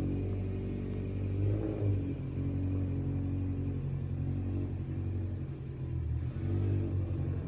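Subaru's engine running as the car drives, its note mostly steady, with a brief rise in pitch about a second and a half in.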